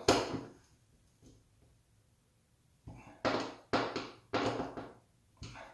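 Short knocks and scrapes on a hollow-core door from hands and a screwdriver working a towel-ring mounting bracket. There is one sharp knock at the start, then a quick run of about five more from about three seconds in.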